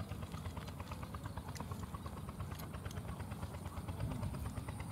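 A small engine running steadily: a fast, even ticking over a low rumble.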